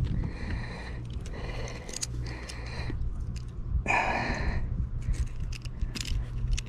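A person breathing heavily close to the microphone, a series of breaths with the loudest exhale about four seconds in, with a few light clicks over a low steady rumble.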